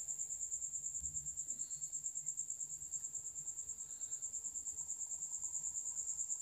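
A cricket chirping steadily in the background, one high-pitched trill pulsing rapidly and evenly at about six pulses a second.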